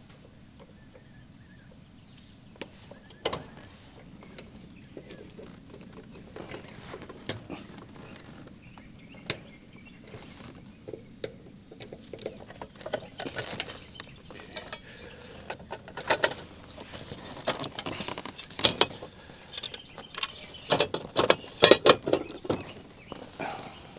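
Hand work on an air conditioner's contactor as it is being removed: scattered clicks, taps and scraping of a screwdriver, wires and metal parts, sparse at first and busier and louder in the second half.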